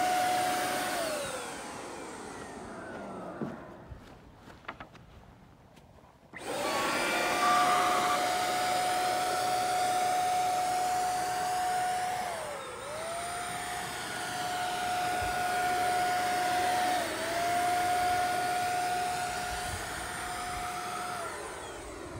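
HomeRight Super Finish Max handheld HVLP paint sprayer running with a steady whine over a hiss of air while spraying clear polyacrylic. It winds down about a second in, stays off for a few seconds, starts up again sharply, dips in pitch briefly twice, and winds down near the end.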